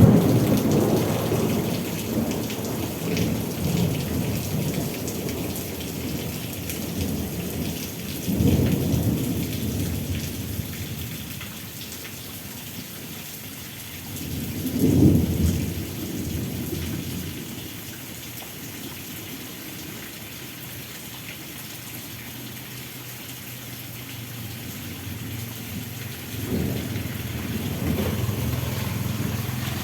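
Rain falling steadily, with thunder rumbling through it: a roll fading over the first few seconds, then fresh rolls about eight seconds in, a sharper one around fifteen seconds, and another near the end.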